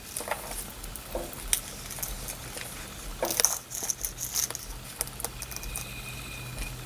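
Small metal clicks and clinks of a ball chain being handled and hooked onto a planner's metal binder rings, with light paper rustling, and a short cluster of rattling about three seconds in.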